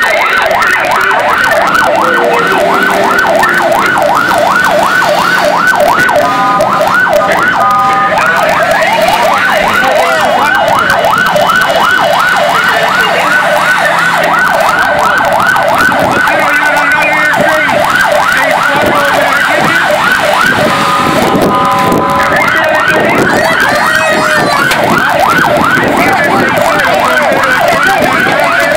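Fire engine's electronic siren sounding a fast yelp, a rapid up-and-down sweep repeated several times a second. Twice it gives way to short blasts of a steady horn, once about seven seconds in and again near 21 seconds.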